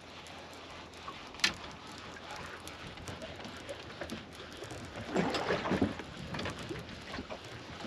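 Steady wind and sea noise around a small open boat drifting at sea while a fish is reeled in. There is a sharp knock about a second and a half in, and a louder, rough rush of wind or handling noise a little after five seconds.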